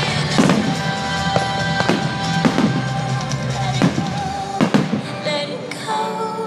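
Music with a drum kit beat and held notes, with several sharp hits standing out about a second apart.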